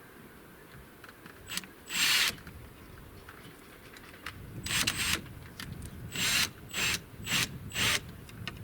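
About seven short rasping strokes of a tool working wood, in uneven groups, the last four coming about every half second.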